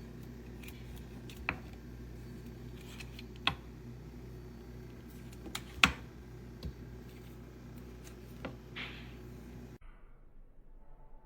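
A few sharp clicks and knocks of small hard objects being handled over a steady low hum. The loudest click comes about six seconds in and a brief hiss follows near the end. The hum then cuts off suddenly.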